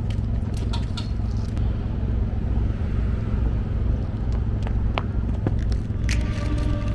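Steady low rumble of road traffic or a running vehicle, with a few scattered sharp clicks.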